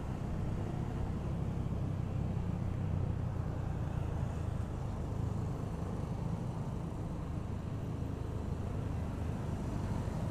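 Steady low drone of a motorcycle engine and road noise, heard from the rider's own seat while riding in traffic.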